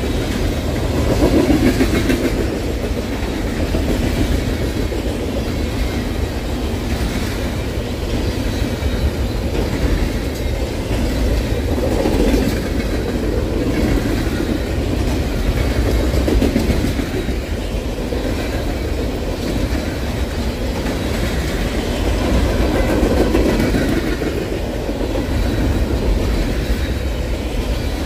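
Freight cars of a passing train rolling by: steady wheel and rail rumble with clickety-clack over rail joints, swelling and easing every few seconds.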